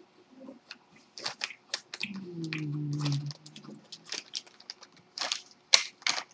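Plastic snack packet crinkling and crackling as fingers dig into the bag of Nikko Choco chocolate crackers, in a run of sharp crackles that are loudest near the end. A short low hum about two seconds in.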